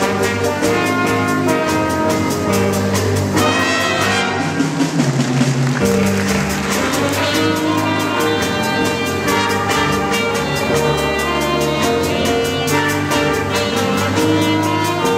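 School jazz band playing with a steady beat: a trombone solo, then an alto saxophone solo, with the band backing.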